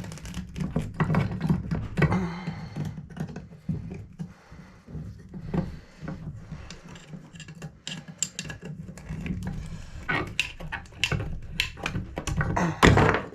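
Irregular clicks, clinks and knocks of metal fixture parts and hand tools being worked on a shower tub drain selector knob, over a steady low hum, with the loudest knocks near the end.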